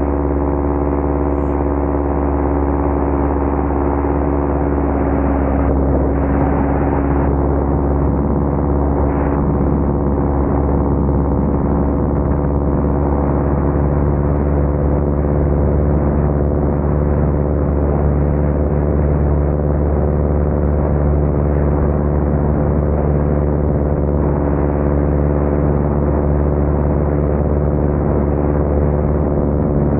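Single-engine bush plane's piston engine and propeller running steadily in flight, a constant even-pitched drone with no change in power.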